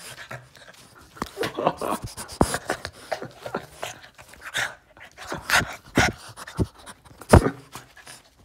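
Boston terrier panting and fussing right at the microphone while it is handled, with scuffs and knocks from the phone being jostled. A sharp thump about seven seconds in is the loudest sound.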